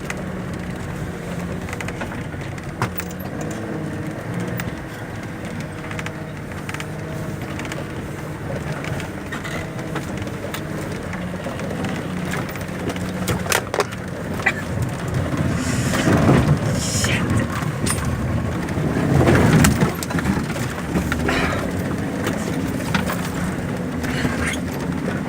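Land Rover Defender engine pulling under load up a rough hill climb, a steady drone with scattered knocks and rattles as the vehicle goes over bumps. It swells louder about two-thirds of the way through.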